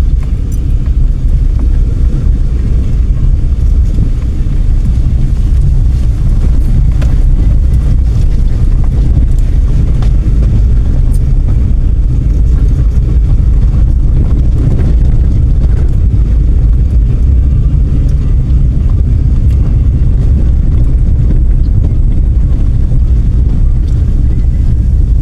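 A car driving along, a steady low rumble of road and engine noise.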